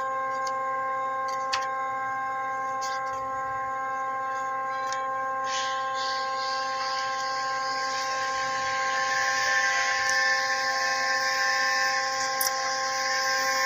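Steady hum of running shop machinery, a drone of several even tones, with a hiss that swells about halfway through and a few faint clicks.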